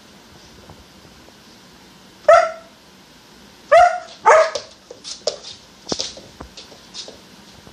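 German Shepherd puppy barking at her own tail while chasing it: three short, high barks, one about two seconds in and two close together near four seconds, followed by light scattered clicks and taps.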